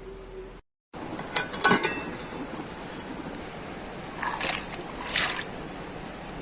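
A few sharp clattering knocks of cookware, about a second and a half in and again twice later, over a steady hiss.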